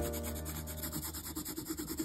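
A pink colouring pen scribbling rapidly back and forth on notebook paper, a fast even run of scratchy strokes, with background music playing under it.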